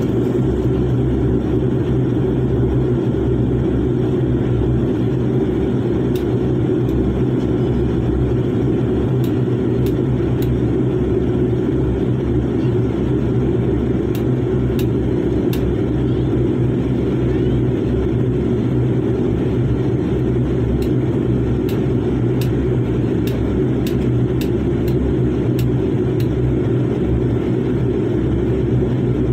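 Steady, unbroken low rumble of a passenger airliner cabin with the engines running on the ground before takeoff. A few faint ticks are scattered through it.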